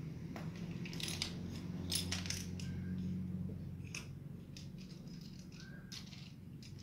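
Lace fabric rustling and crinkling as hands shift and smooth it flat on a mat, in short irregular bursts over a steady low hum.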